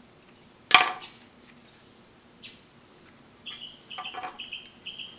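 A bird chirping: short, steady, high whistled notes about once a second, then quicker, lower notes near the end. A single sharp click just under a second in is the loudest sound.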